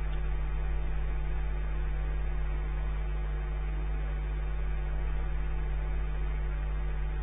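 Steady low electrical hum, unchanging throughout, with a faint even hiss above it.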